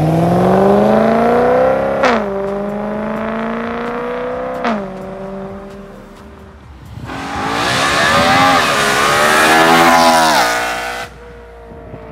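BMW E93 M3's V8 accelerating hard away, its pitch climbing and dropping at two upshifts, about two and four and a half seconds in, then fading into the distance. Later a louder rush of engine and road noise builds and cuts off suddenly about eleven seconds in.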